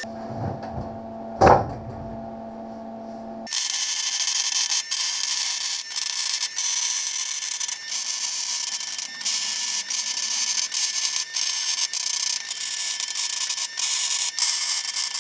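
MIG welder (Longevity MigWeld 140) welding steel roll-cage tubing: a steady crackling hiss from the arc, starting about three and a half seconds in and running in stretches broken by brief pauses. Before it there is a low steady hum and one sharp knock about a second and a half in.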